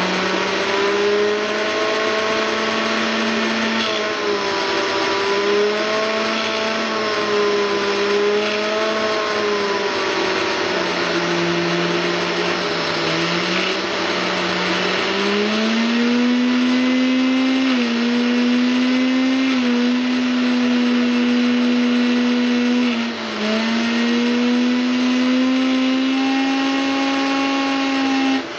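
Handheld electric blower running with its air jet pushed into a PC case fan to spin it as a generator: a steady motor hum over a rush of air. The pitch wavers and steps up about halfway through, with a brief dip near the end.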